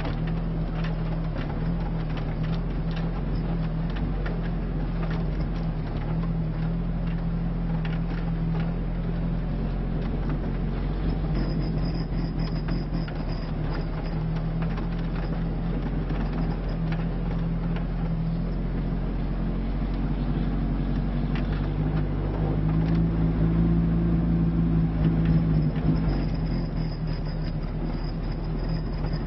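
Lada Niva's engine running under load, heard from inside the cabin as the 4x4 climbs a rough off-road track, with scattered short knocks over the bumps. About three-quarters of the way through, the engine grows louder, working harder, then settles back.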